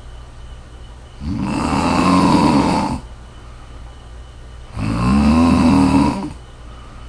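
A woman snoring: two long, loud snores about three and a half seconds apart, the second wavering in pitch, with quieter stretches between them.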